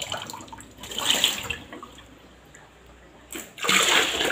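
Water splashing: tap water running into a plastic pitcher with a splash about a second in, then, near the end, a louder splashing pour as the pitcher is emptied into a clear plastic storage bin.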